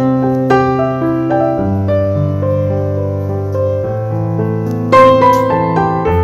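Background piano music: a slow, gentle electric-piano piece of sustained chords and single notes, with a brighter run of struck notes about five seconds in.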